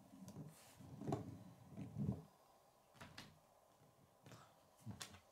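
A plastic K'nex model being handled on a wooden tabletop. There are low rubbing and rolling sounds of its wheels and parts for about two seconds, then a few light clicks and knocks of plastic against wood.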